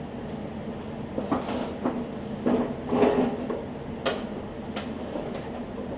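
Irregular clinks, knocks and short scrapes of tools and small metal carburetor parts being handled on a lawn mower carburetor, about eight in all, over a faint steady hum.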